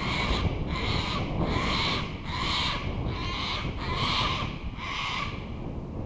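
Cockatoos giving a run of harsh screeches, about seven calls roughly one every second, stopping near the end. They are calling in agitation at a hawk circling overhead.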